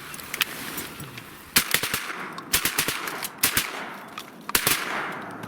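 A volley of shotgun fire from several duck hunters: about a dozen shots in quick, uneven succession, each echoing briefly.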